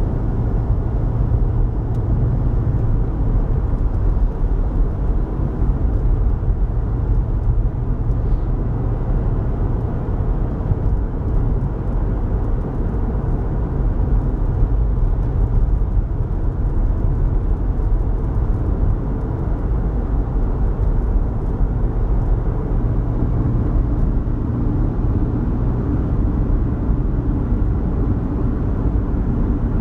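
Steady low rumble of a car driving, heard from inside its cabin: engine and tyre noise at an even level throughout.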